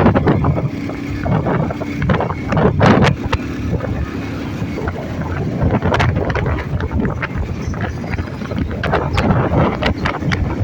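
Wind buffeting the microphone over the rumble of a moving vehicle, with frequent knocks and rattles.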